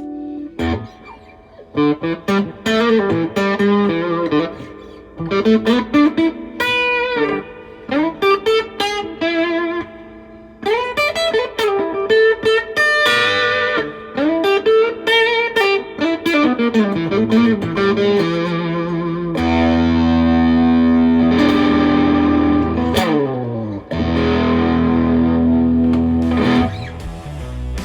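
Electric guitar played through a handmade Colorsound-style effects pedal. It plays picked single-note lines with string bends, then sustained, full, distorted chords from about two-thirds of the way in.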